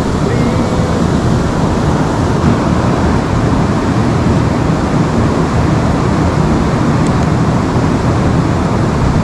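River water rushing steadily close to the microphone, a loud even noise with no breaks.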